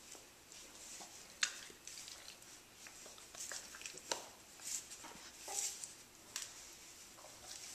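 A Doberman and a kitten play-wrestling: soft, irregular snuffling and mouthing sounds from the dog nosing at the kitten, coming about once a second, with one sharp click about a second and a half in.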